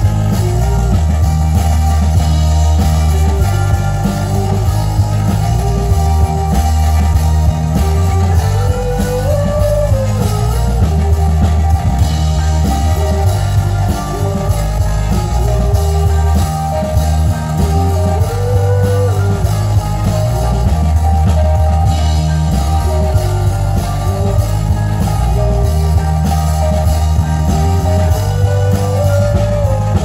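Live band playing an instrumental passage on accordion, synthesizer, bass guitar and drums: a melody that repeats its shape about every nine seconds over a steady, heavy bass line.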